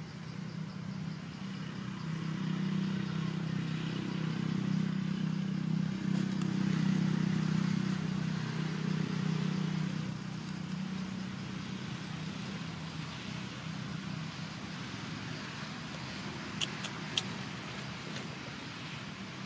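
Low engine hum of a passing motor vehicle, swelling over several seconds and then fading, with two sharp clicks near the end.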